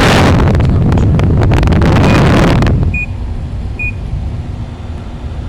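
GE 6000 BTU window air conditioner running with its compressor on: a loud rushing noise with low rumble for about the first three seconds, then a quieter steady hum. Three short high beeps sound during the quieter part.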